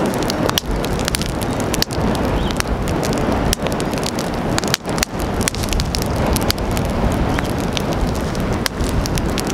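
Wood fire burning on a mimosa stump, crackling with many sharp pops and snaps over a steady rushing noise.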